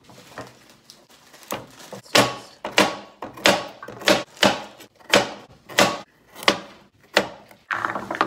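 Chef's knife chopping carrots on a white plastic cutting board. There are a few light cuts, then about nine firm chops at roughly one and a half a second, each a sharp knock of the blade on the board.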